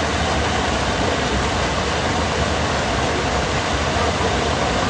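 Muddy floodwater rushing and churning over a submerged road: a loud, steady rush that does not let up.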